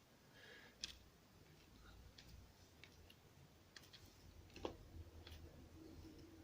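Near silence with a few faint, light clicks of tiny lock springs and pins being handled and set down, the clearest a little before five seconds in.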